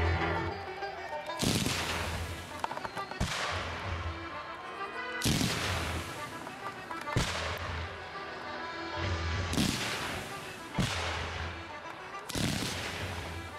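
Aerial fireworks shells bursting in a string of sudden booms, about nine in all and irregularly spaced, each trailing off in a fading tail.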